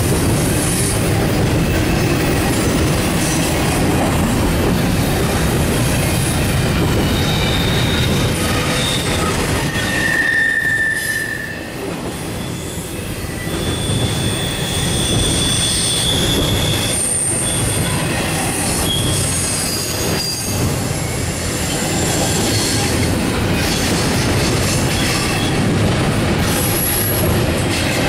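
Double-stack intermodal well cars rolling past at close range: a steady heavy rumble of steel wheels on rail, with high-pitched wheel squeals that come and go.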